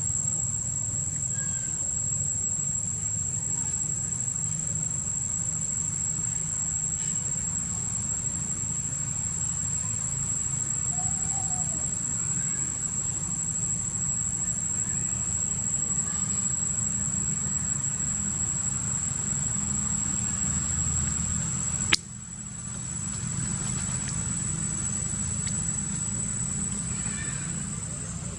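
Steady, high-pitched drone of insects with a low rumble beneath it and a few faint short chirps; a single sharp click sounds once, about two-thirds of the way through.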